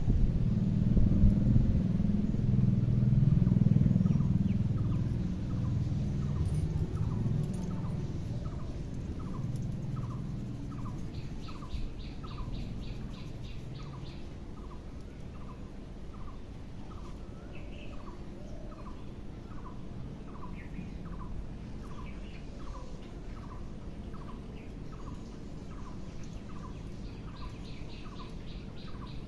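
A bird repeating a short, slightly falling chirp about three times every two seconds, with a quick higher trill now and then. A low rumble, loudest at the start, fades out by about eight seconds in.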